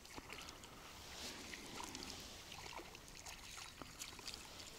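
Faint splashing of a small hooked fish at the water's surface as it is reeled in toward the boat, with scattered light clicks.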